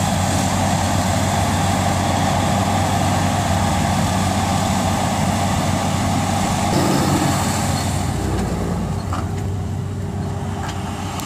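Claas combine harvester running steadily as it harvests rapeseed, a dense engine and machinery drone. About eight seconds in the sound changes, its high end fading, as a tractor pulling a grain trailer passes close.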